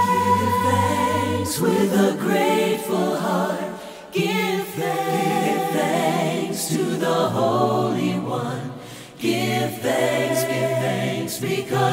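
A cappella choir singing a Christian worship song, voices only with no instruments. The singing breaks briefly between phrases about four and nine seconds in.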